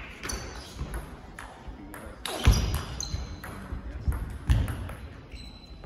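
Table tennis rally: the celluloid-type ball clicks sharply off bat rubbers and the table, about two hits a second, some with a short high ping. Two heavy thuds from the players' feet stamping on the hall floor as they lunge stand out as the loudest sounds.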